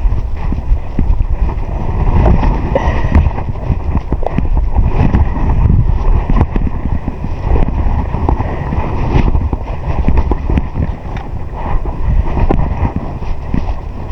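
Wind buffeting the microphone: a loud, gusty rumble that rises and falls, with scattered small knocks.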